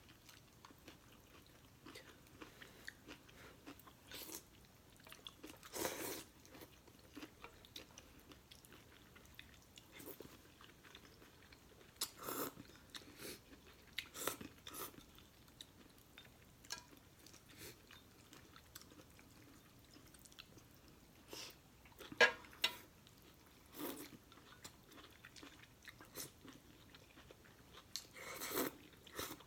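Close-up eating sounds: scattered wet chewing and biting of instant noodles, a short burst every second or two with quiet between.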